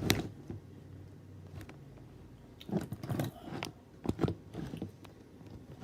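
Handling noises: a scatter of small clicks and light knocks, with a sharper one right at the start and clusters about three and four seconds in.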